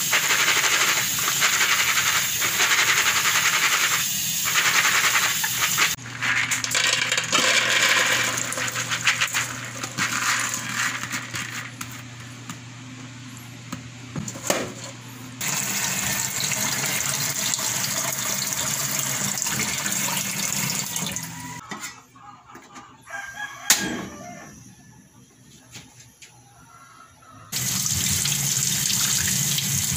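Tap water running while hands swish and rub mung beans in a plastic basin to rinse them. A quieter stretch follows with scattered clicks and one sharp knock. Near the end the tap runs steadily again as tomatoes and green chilies are rinsed over a stainless steel sink.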